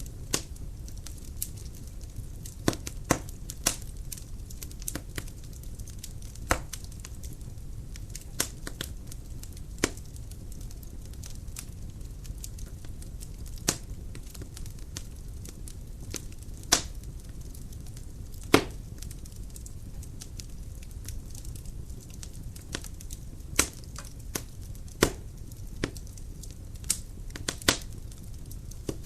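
Dry firewood burning in a fireplace: a steady low rush of flame with irregular sharp crackles and occasional louder pops from the burning logs.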